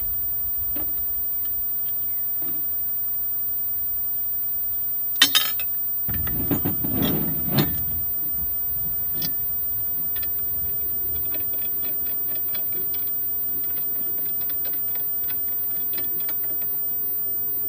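Steel target parts being fitted together by hand: two sharp metal clanks about five seconds in, then a couple of seconds of knocking and scraping as the plate is worked onto its base. Light clicks and ticks follow.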